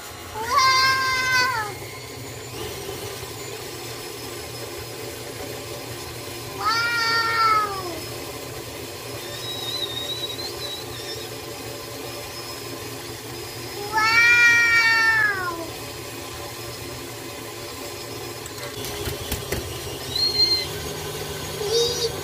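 KitchenAid Artisan stand mixer running steadily, its beater creaming butter and brown sugar in a stainless steel bowl. Over the hum come three loud, drawn-out meow-like calls, each about a second long and dropping in pitch at the end.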